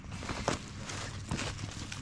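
Footsteps crunching on dry corn stubble, a few sharp crunches over a low steady rumble.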